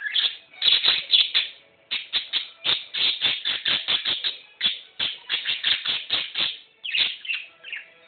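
Budgerigar flapping its wings while perched in its cage: fast runs of short, sharp wing-beat strokes, about four to five a second, with brief pauses between the runs.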